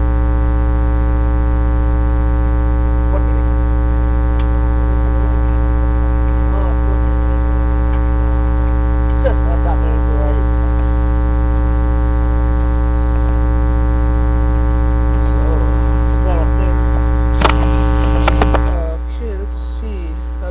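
Loud steady electrical mains hum, a buzz with many evenly spaced overtones, on the webcam recording. Near the end come a few sharp clicks, and then the low part of the hum drops away and the overall level falls.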